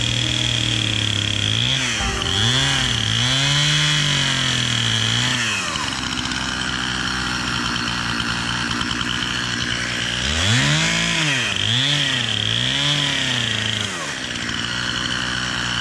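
Gasoline chainsaw running, its engine revving up and dropping back about once a second in two spells, with steadier running in between.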